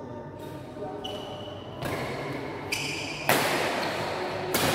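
Badminton rally: a series of sharp racket strikes on the shuttlecock, the loudest about three seconds in, with short high squeaks of shoes on the court floor.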